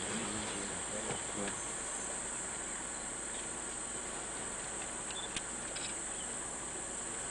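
Steady, high-pitched drone of insects in the bush.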